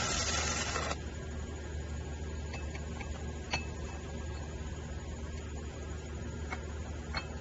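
A small 110 V stick welder's arc hisses for about the first second, then cuts off, leaving a steady low hum with a few faint clicks.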